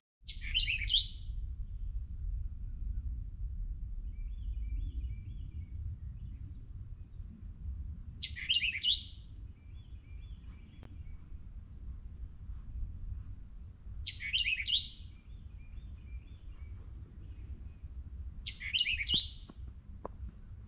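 A songbird singing the same short phrase four times, several seconds apart, with fainter twittering calls in between, over a steady low rumble.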